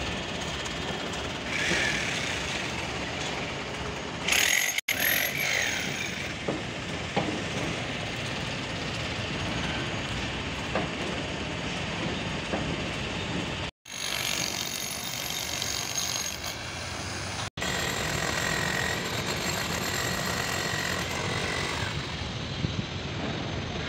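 Construction-site noise: steady machinery running throughout, cutting out sharply for an instant three times.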